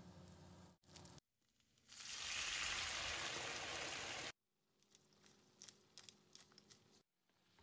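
Frying pan of garlic, dried tomatoes and pasta in hot oil and liquid, with a loud, even sizzle for about two seconds. After a cut it gives way to lighter crackling and popping as the pan bubbles.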